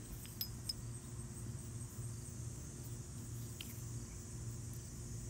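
Faint outdoor ambience: insects chirping in a steady high repeating trill over a low steady hum, with a few small clicks as the metal bar is handled.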